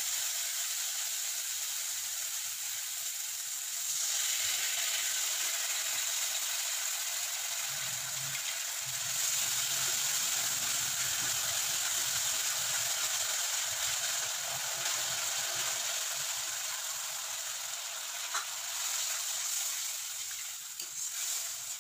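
Spice paste sizzling in hot mustard oil in a metal wok as the spice-grinding water is added and stirred in with a spatula. The sizzle gets louder about four seconds in and again around nine seconds in.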